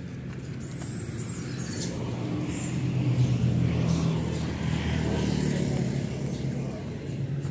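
Road traffic: motorcycles and cars passing close by on the road, their engine hum and tyre noise swelling to its loudest a little past the middle.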